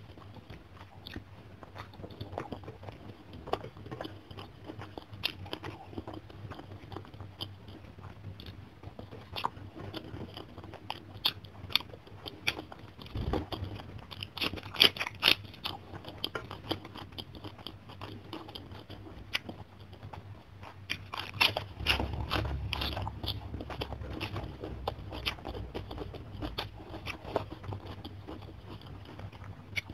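Close-miked eating: chewing and mouth sounds with crisp crunching as a raw napa cabbage leaf wrapped around food is bitten and chewed, loudest about halfway through and again about three-quarters of the way in.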